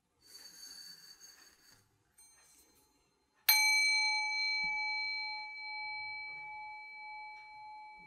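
A brief scraping as a brass bowl bell is fitted onto a threaded rod, then the bell is struck once, about three and a half seconds in, and rings out with one clear note and a few high overtones, fading slowly.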